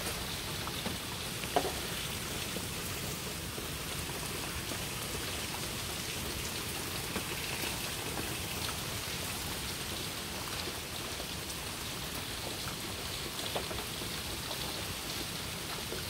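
Steady hiss of falling rain, with a faint tap about a second and a half in and another near the end.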